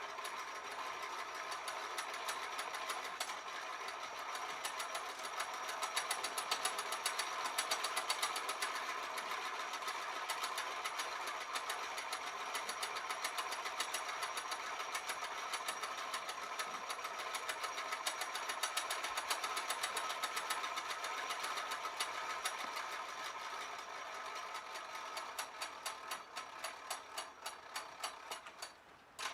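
The wheelbarrow lift's hoist running steadily with a rapid, even ticking as it lowers the empty wheelbarrow. The ticking turns more pronounced near the end, and the hoist stops suddenly.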